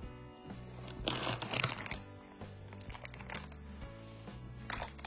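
Background music with a steady low bass line, and a stretch of rustling and crinkling of toy packaging about a second in, with a few light clicks near the end.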